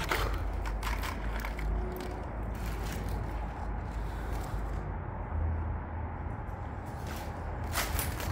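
Footsteps crunching and scraping through a litter of crushed aluminium cans and scrap, a few crunches in the first two seconds and again near the end, with a quieter stretch between. A steady low rumble runs underneath.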